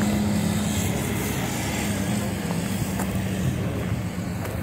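A vehicle engine idling steadily, a low even hum.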